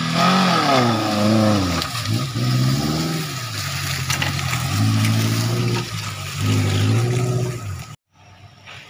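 Suzuki Jimny off-roader's engine revving up and down repeatedly under load as it crawls up a rough dirt trail, the pitch rising and falling with each push of the throttle. The engine sound cuts off suddenly near the end, leaving only faint background sound.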